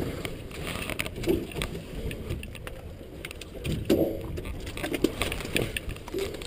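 Knocks, clicks and splashes of a salmon net being hand-picked over the side of a skiff, sockeye being worked out of the mesh, over a steady low rumble. Everything is muffled by the camera's waterproof case.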